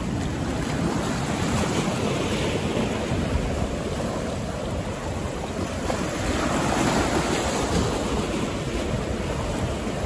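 Sea waves breaking and washing on the shore, with wind rumbling on the microphone; one wave washes in a little louder about six seconds in.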